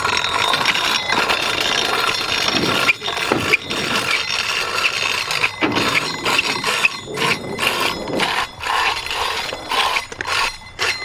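Steel circular saw blade fitted as a scooter's front wheel, rolling over concrete with a harsh, continuous metallic scraping and grinding that rises and falls unevenly. The blade is loose on its axle because the spacers are smaller than its centre hole, so it wobbles and rubs as it turns.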